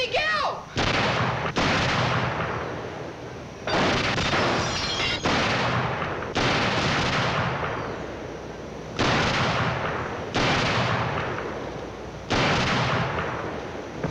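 Gunshots in a shootout: about eight loud single reports, fired one to three seconds apart. Each has a long echoing decay, and a few fainter cracks fall between them.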